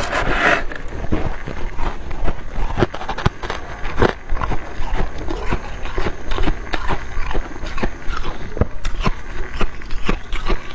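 A plastic scoop scraping into packed freezer frost right at the start. Then close-up crunching of freezer frost being chewed: many irregular, sharp crackles.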